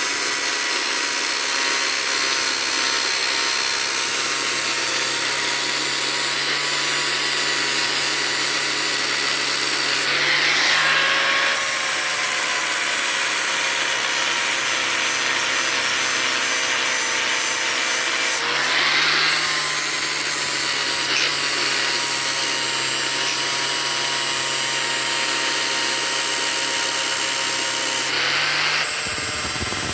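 Electric power tool running steadily while 400-grit abrasive rubs against a metal suspension linkage part, a continuous whine under a sanding hiss. The motor's pitch dips briefly twice, about ten seconds in and again near eighteen seconds.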